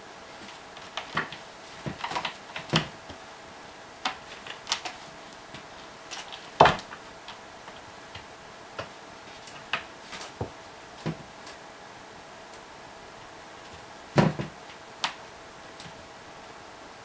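Irregular taps, knocks and scrapes as a Bengal cat paws and bats about inside the holes of a carpeted cat tree, with two louder thumps about six and a half and fourteen seconds in.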